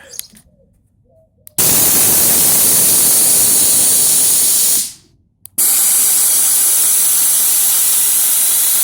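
Air ride suspension valves letting compressed air through, worked from the remote: two long, loud hisses of rushing air. The first starts about one and a half seconds in and lasts about three seconds; the second starts about a second after it stops, just after a click.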